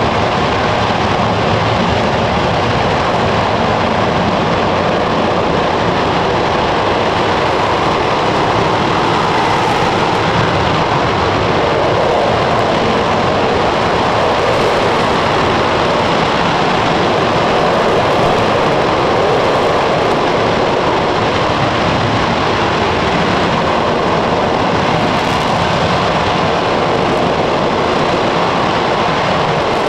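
RS-25 liquid-fuel rocket engine firing on a test stand: a loud, steady rushing noise of the exhaust that holds evenly without breaks.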